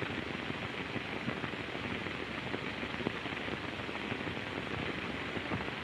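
Steady hiss and crackle of an early sound film's optical soundtrack between lines of dialogue, with no other sound standing out.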